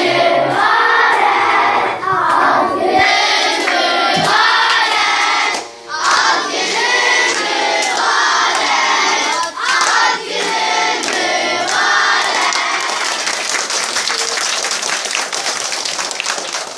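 A group of children singing together loudly in chorus with hand claps. About twelve seconds in the singing gives way to steady clapping.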